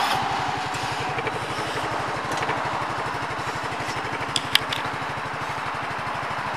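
Small side-by-side's single-cylinder four-stroke engine idling with an even, steady low putter. A couple of sharp clicks come about four and a half seconds in.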